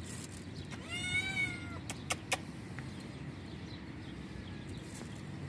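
A young tabby cat meows once about a second in, a short call that rises and then falls in pitch. Two sharp clicks follow just after two seconds.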